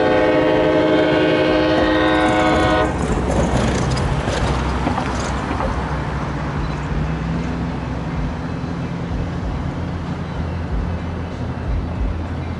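Air horn of an approaching Amtrak San Joaquins passenger train sounding one long chord for the grade crossing, cutting off about three seconds in. A steady low rumble of the oncoming train follows.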